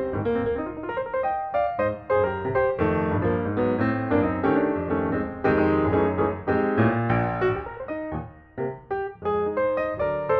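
Background piano music: a lively run of struck notes and chords at a steady level.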